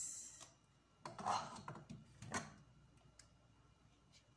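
A spoon scraping and knocking against a small plastic tub and the food processor bowl while tomato purée is scooped out: a few soft scrapes and taps, about one and two and a half seconds in.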